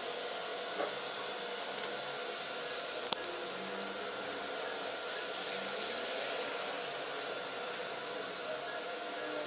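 Steady background hiss with a faint hum, and a few small clicks from a camera tripod being handled and adjusted, the sharpest about three seconds in.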